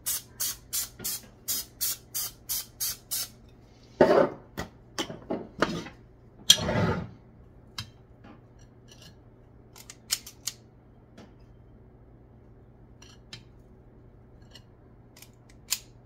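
Aerosol cooking spray (PAM) hissing in short squirts, about three a second, over a metal muffin pan for the first three seconds. Two louder knocks or scrapes follow, then light scattered clicks of a metal batter scoop working in a bowl.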